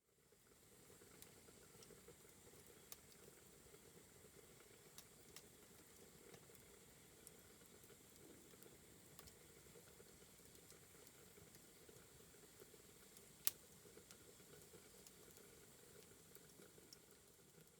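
Faint, steady sizzling of food cooking, with scattered small crackles and one sharper click about thirteen seconds in.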